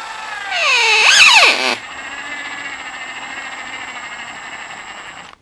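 Cordless drill/driver running with a motor whine as it drives a stainless steel screw through a soft rubber bumper foot into a wooden cutting board. The whine is loudest and its pitch dips then climbs sharply about a second in, then it runs steady and stops suddenly near the end.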